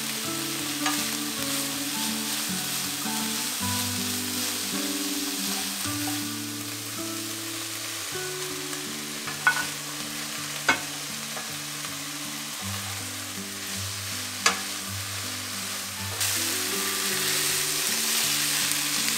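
Stir-fry sizzling in a hot wok as it is stirred and tossed, with a few sharp clicks of the utensil against the pan. The sizzle gets louder near the end. Soft background music with held low notes plays underneath.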